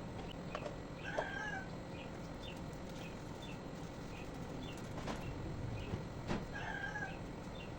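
Birds calling: a thin high chirp repeated about twice a second, with two longer calls, one about a second in and one near the end. A couple of light knocks fall between them.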